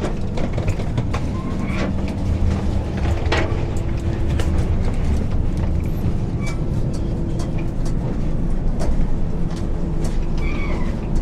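Passenger train coach running, heard from the vestibule: a steady low rumble with scattered rattles and knocks.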